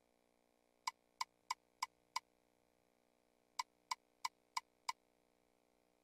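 Ultimate Fire Link slot game's reel-stop clicks: two spins, each with five short clicks about a third of a second apart as the five reels land one after another.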